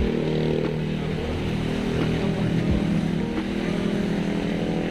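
A motor vehicle's engine idling steadily.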